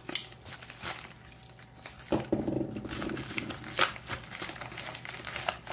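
Crinkling and rustling of a white padded bubble mailer being handled and opened by hand, with scattered sharp crackles and a denser spell of rustling about two seconds in.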